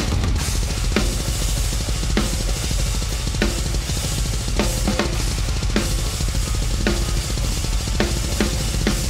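Metal drum kit played fast: a continuous double-bass-drum pattern from two bass drums under a wash of crash and china cymbals, with a hard snare hit about once a second.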